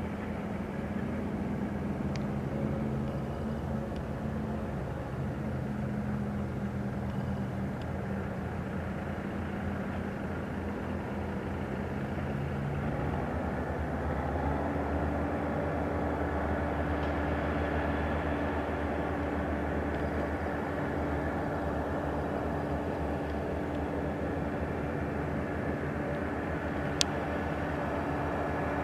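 Diesel engine of a cranberry bog harvesting machine running steadily under load, with a pitch change about halfway through. A single sharp tick comes near the end.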